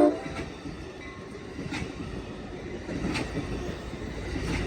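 Amtrak Capitol Corridor passenger train rolling past: a steady rumble of the cars going by, with a few sharp clicks. The train horn cuts off right at the start.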